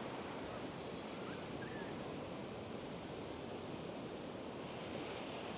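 Ocean surf washing onto the beach: a steady, even rush of breaking waves.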